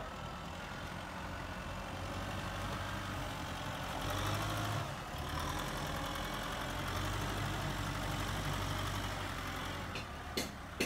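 Kubota tractor's diesel engine running steadily under load as its front blade pushes soil, getting a little louder about four seconds in. Near the end, sharp knocks start, about two or three a second.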